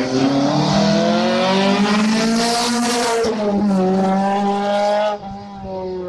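Historic race car accelerating hard up a hillclimb road and passing close by, its engine note climbing and then dropping in pitch as it goes past about three seconds in. The sound cuts to a quieter, more distant engine after about five seconds.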